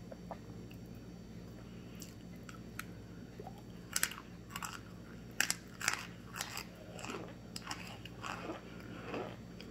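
A person biting and chewing hard, dry chunks of starch: a few sharp crunches about two seconds in, the loudest bites between about four and six seconds, then a run of softer crunching chews.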